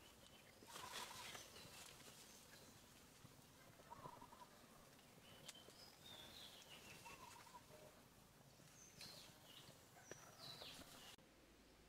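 Faint forest ambience with short high chirping and falling calls from animals, repeated several times, clustered about a second in and again near the end.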